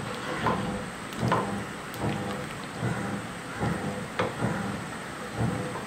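Wooden spoon stirring a thick coconut-milk potato curry in a nonstick pan: wet, sloshing strokes about once a second, with light clicks of the spoon against the pan.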